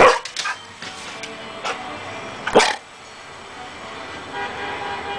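Black German Shepherd puppy giving a few short barks, the loudest at the start and again about two and a half seconds in, over background music.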